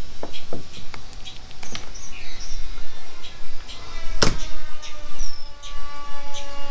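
Bird chirps and whistles mixed with scattered sharp clicks and snaps, the loudest snap about four seconds in. Near the end a longer, held whistling call.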